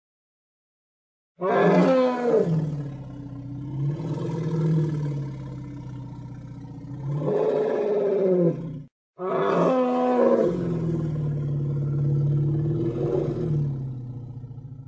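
Woolly mammoth film sound effect: two long, deep calls, each opening with a sharp drop in pitch and then held low and wavering. The first starts about a second and a half in and lasts about seven seconds; the second follows after a short gap and fades near the end.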